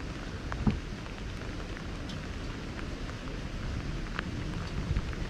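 Steady rain falling, with scattered drop ticks over a low rumble, and a single soft thump about two-thirds of a second in.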